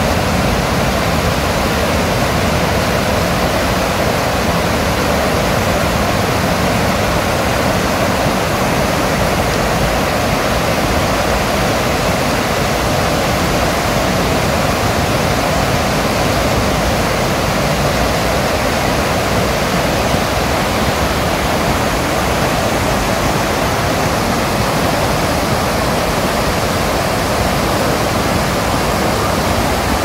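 Stream water rushing in white rapids over and between a line of stepping stones: a steady, unbroken rush of water.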